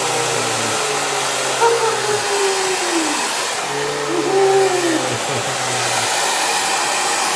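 Handheld hair dryer running, a steady rush of blown air with a low motor hum underneath.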